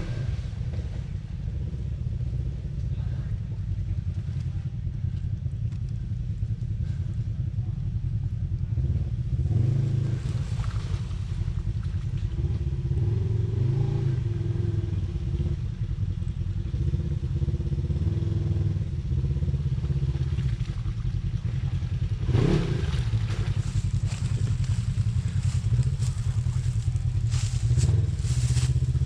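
Off-road vehicle engine running steadily, with a brief rev that rises and falls about two-thirds of the way through, and a run of sharp clicks and knocks near the end.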